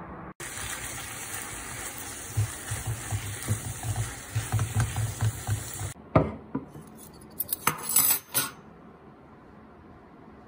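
Eggplant and minced pork cooking in a frying pan: a steady sizzle, with a silicone spatula stirring and knocking against the pan several times a second. Then a few sharp clinks and clatters of utensil on pan or dishes.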